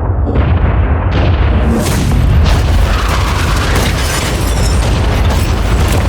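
Explosion: several loud booms piling on one another in the first two seconds, each sudden onset adding more hiss, then a continuous heavy low rumble.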